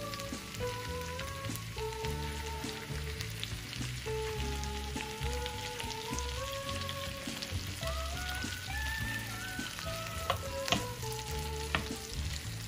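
Shrimp and minced garlic sizzling in oil in a frying pan as they are stir-fried with a wooden spoon, with a few sharp knocks of the spoon against the pan near the end. Background music with a melody and bass beat plays throughout.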